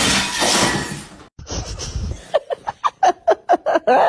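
A loud, noisy burst lasting about a second, then a person laughing in quick, rapid bursts that start a little past the middle.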